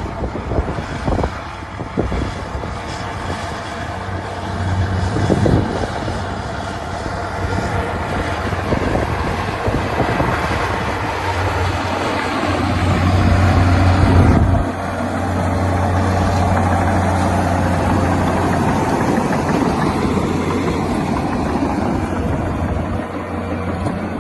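Komatsu D61EX bulldozer's diesel engine running steadily under load, with a few knocks in the first seconds; the engine note builds to its loudest around two-thirds of the way through and then drops suddenly before running on.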